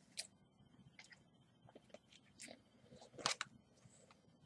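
Faint rustling and scratching of hands working at a taped mail package to get it open, with one sharper crinkle about three seconds in.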